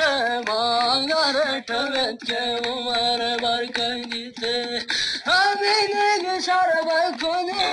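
Singing: one voice holding long, ornamented notes in a slow melody.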